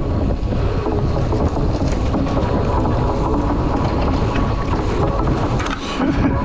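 Wind buffeting the camera microphone of a mountain bike descending a dusty dirt trail, a steady rush with the tyres rolling and the bike rattling over the ground.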